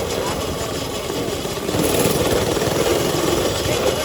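Small mini bike engine running with a rapid steady firing beat, getting a little louder about two seconds in.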